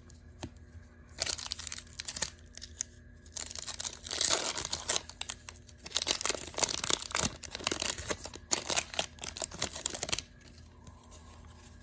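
Foil card-pack wrapper being torn open and crinkled, in several rustling bursts over about nine seconds, stopping suddenly near the end.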